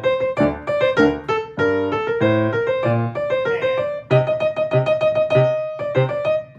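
Piano playing a choir's soprano line over chords at a slowed rehearsal tempo: a run of short repeated notes, then a longer held note from about four seconds in.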